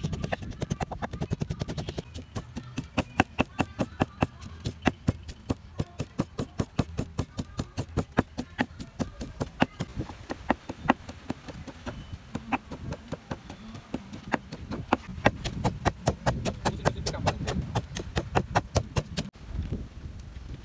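Wooden pestle pounding chopped herbs in a wooden mortar: a steady run of knocks, about three to four a second, that stops suddenly near the end.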